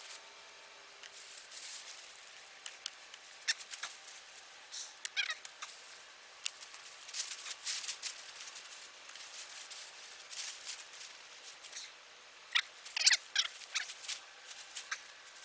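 Rustling, crackling and scratching of hands working through soil and potato plant foliage, with scattered sharp clicks and a couple of short sliding squeaks.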